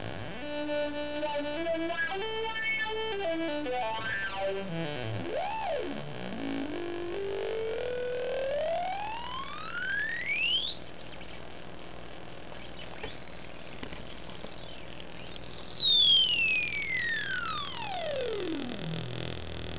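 Auduino, an Arduino-based granular synthesizer, played through a small LM386 amplifier. First comes a run of notes stepping up and down in pitch. Then a long sweep rises to a high whistle, and near the end a long sweep falls back down.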